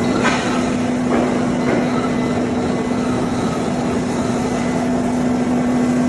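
Electric crawler muck loader running: a steady machine noise with a constant hum and a few faint knocks near the start.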